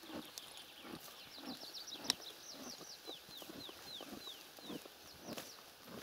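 A small songbird singing a run of short, high, downslurred whistled notes, quick at first and then slower and lower, over soft thuds and rustles of a horse shifting about in the grass.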